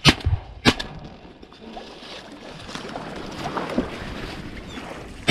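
Two sharp shotgun reports in quick succession right at the start and another at the very end, over wind and the rustle of dry corn stalks.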